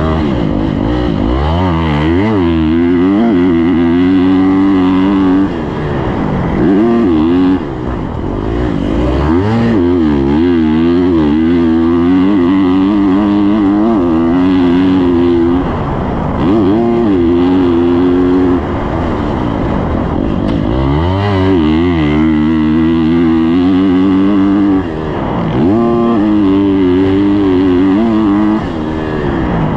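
KTM 250 SX-F single-cylinder four-stroke motocross engine ridden hard. It revs up repeatedly, the pitch falling back at each gear change. The sound drops briefly about five times as the throttle is shut off.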